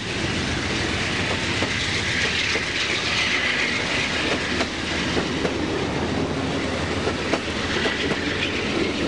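Amtrak Southwest Chief passenger train rolling past, a steady rumble of wheels on rail with repeated clicks as the wheels cross rail joints.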